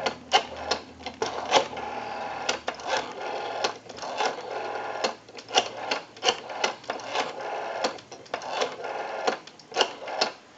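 Rotary dial of a Western Electric 554 wall telephone being turned and let go digit after digit, whirring and clicking in groups as it spins back to dial out a number.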